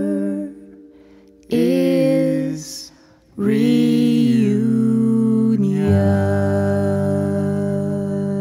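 Female and male voices singing wordless held notes in harmony with an acoustic guitar, the closing phrase of a folk-jazz song. The singing breaks off briefly twice, then a final low chord is held from about six seconds in.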